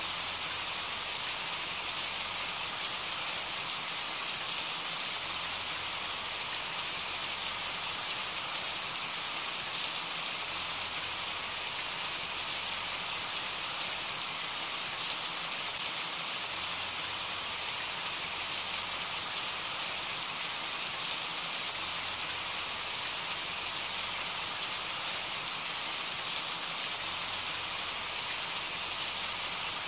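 Steady rain, an even hiss of falling drops with a few louder single drops now and then.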